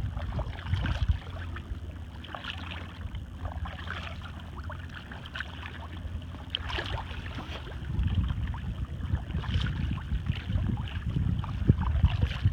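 Kayak paddle dipping and water splashing and dripping around a sea kayak, in irregular small splashes. Wind buffets the microphone in a low rumble that grows stronger about two-thirds of the way through.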